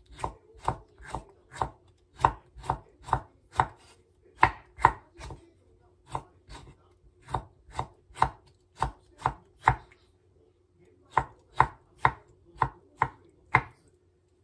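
Kitchen knife slicing hachiku bamboo shoots on a wooden cutting board: a steady run of knocks of the blade on the board, about two a second, with short pauses about six and ten seconds in.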